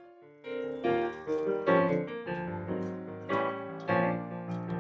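Instrumental background music led by piano notes and chords, starting softly and growing louder about half a second in.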